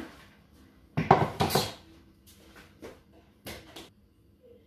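Stainless-steel cookware clanking and clattering: a burst of loud clanks about a second in, a few lighter knocks, then two more clanks past the middle.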